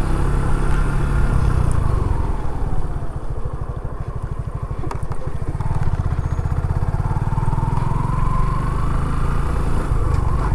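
Motorcycle engine running while riding slowly. The revs drop about three seconds in to a slow off-throttle putter, then pick up again about six seconds in with a rising whine.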